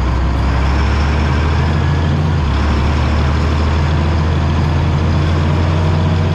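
Allis-Chalmers 7045 tractor's six-cylinder diesel engine running steadily as the tractor drives along, a continuous low drone whose note shifts slightly about two and a half seconds in.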